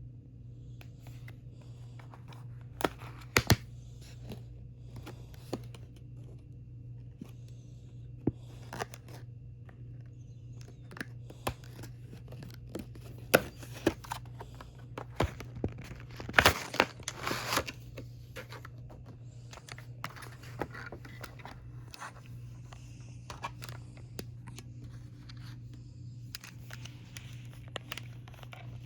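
K-pop album packaging being unwrapped by hand: plastic wrap and paper tearing and crinkling, with scattered clicks and taps. The longest and loudest rustle comes about halfway through, all over a steady low hum.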